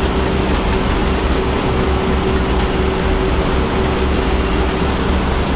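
Truck engine running steadily while driving through a field, a low rumble with a steady hum that drops away near the end.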